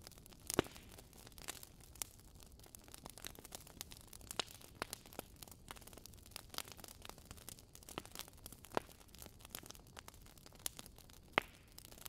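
Wood log fire in a fireplace crackling: irregular sharp pops and snaps over a soft hiss, with a few louder pops standing out.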